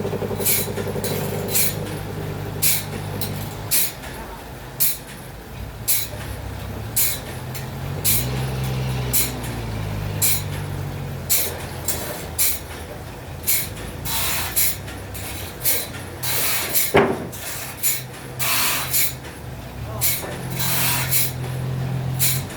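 Sawmill machinery running: a steady low engine drone that shifts pitch now and then, with short sharp hissing noises breaking in irregularly about once or twice a second.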